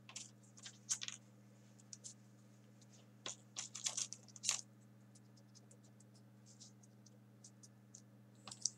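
Small folded-paper 3D origami pieces being picked up and pushed into the pockets of a paper model: faint, scattered paper clicks and scrapes in a few quick clusters, over a low steady hum.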